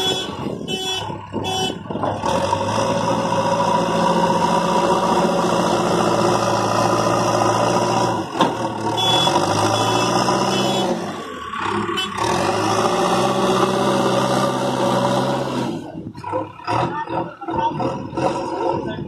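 JCB backhoe loader's diesel engine working hard as the front bucket scoops and lifts sand, its pitch dipping and climbing back up twice around the middle as the load changes. A few short high beeps sound in the first second or so, and the engine drops to a lower, uneven run near the end.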